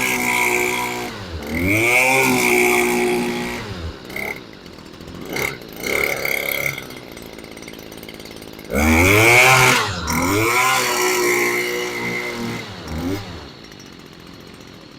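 Two-stroke string trimmer engine running on a newly fitted carburetor, revved up and down several times with the throttle and dropping back to a lower idle in between. It quietens near the end.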